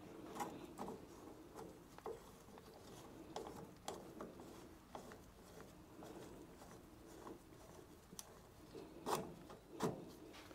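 Faint scattered clicks and light knocks of small parts being handled, with two louder knocks near the end.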